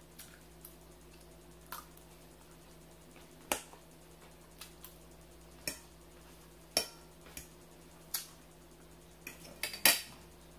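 Eating sounds: about a dozen short, sharp clicks and smacks at irregular intervals, with a quick cluster near the end that holds the loudest one.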